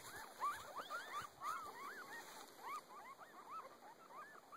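Ten-day-old Boykin spaniel puppies squeaking and whimpering, a steady run of short high squeaks, several a second and overlapping.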